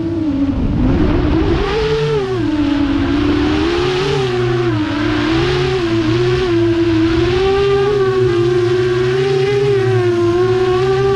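FPV quadcopter's brushless motors and propellers whining steadily, the pitch rising and falling as the throttle changes.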